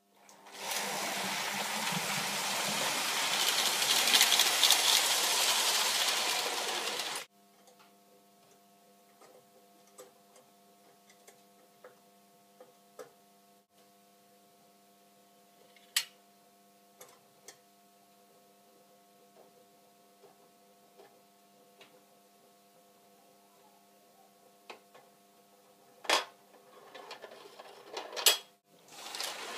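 Lionel O-gauge model train equipment running loudly with a dense rattling whir for about seven seconds, then stopping abruptly. A steady low electrical hum with a few faint clicks follows. The loud running starts again near the end.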